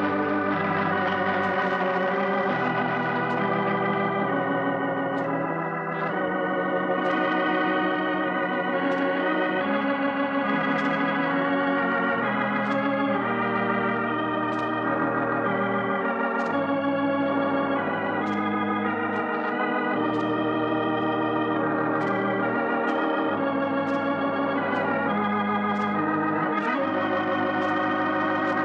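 Organ playing the radio show's closing theme in sustained, slowly changing chords with a wavering vibrato.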